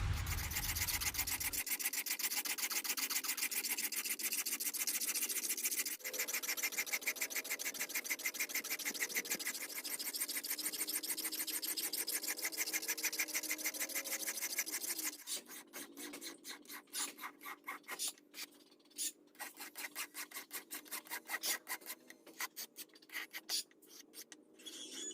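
A forged iron blade being filed by hand with rapid, even rasping strokes. About fifteen seconds in, the strokes become slower and more spaced out.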